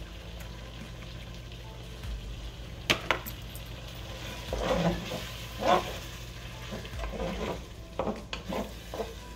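Wooden spoon stirring a thick mix of ground beef, diced tomatoes and ranch dressing in a large pot, giving wet scraping squelches in uneven strokes. Two sharp knocks come about three seconds in, before the stirring starts.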